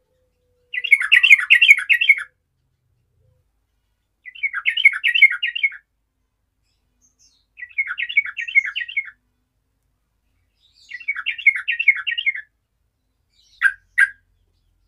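Yellow-vented bulbul singing: five short bubbly phrases of quick warbled notes, one about every three and a half seconds, then two brief sharp notes near the end.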